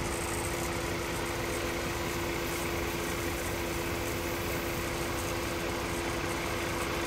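Combine harvester running steadily while unloading threshed sorghum into a grain truck: a constant engine hum with a steady tone.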